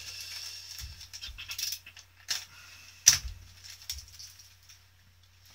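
Small metal hardware (nuts and screws) jingling and clicking as it is handled on a wooden tabletop, a few separate sharp clicks with the loudest about three seconds in.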